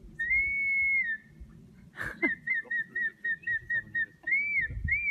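A person whistling clear notes: one long held note, then after a sharp click about two seconds in, a quick run of short repeated notes, about five a second, ending in a few rising-and-falling notes.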